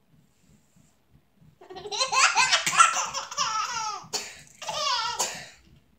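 Baby laughing in two bursts: a long run of laughter starting a little under two seconds in, then a shorter burst near the end.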